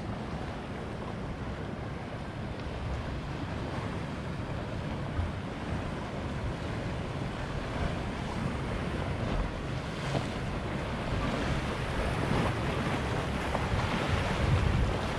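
Wind buffeting the microphone over the steady wash of sea waves, getting slightly louder toward the end.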